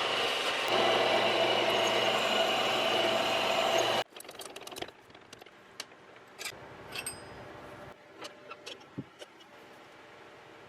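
Mini lathe running with a steady motor whine and cutting noise, which cuts off abruptly about four seconds in. After that it is quiet apart from scattered small metallic clicks and taps.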